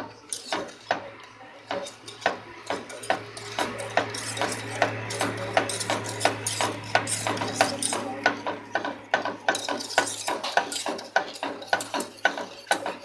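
Almond milk and sugar being stirred in a pan, the stirring utensil clinking against the pan about two or three times a second, over a steady low hum.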